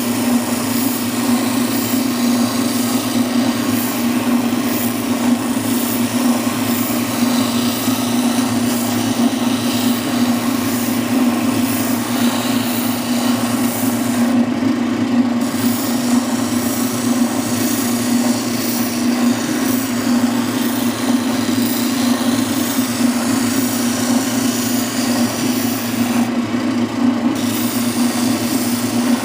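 Oscillating spindle sander running with a steady hum while the edge of a wooden panel is sanded against the spinning drum.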